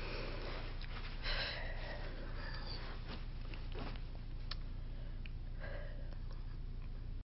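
A woman sniffling and breathing through her nose, a few short sniffs while upset and grieving, over a steady low hum.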